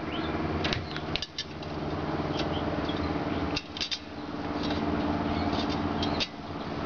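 Steel bolts and nuts clinking as they are picked up and set into a wood stove door frame: a few sharp metallic clicks, over a steady low hum and faint high chirps.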